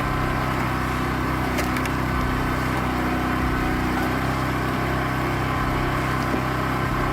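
Hydraulic log splitter's power unit running steadily at constant speed, with a couple of faint clicks about a second and a half in.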